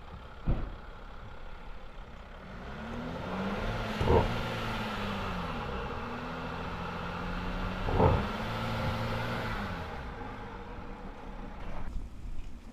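A motor vehicle passing close by, its engine and tyre noise swelling over a few seconds, holding, then fading, with its pitch rising and falling. Three short sharp thumps come about four seconds apart.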